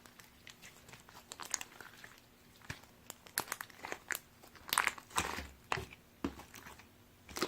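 Slime being handled: faint, scattered crackling and clicking, growing busier after the first second and a half.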